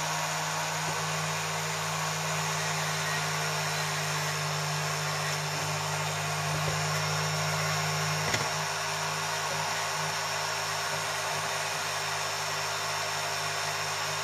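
Bench grinder motor running steadily and driving a flexible-shaft rotary handpiece, whose small bit is grinding and polishing pits out of a Suzuki FZ50's cast aluminium engine side cover.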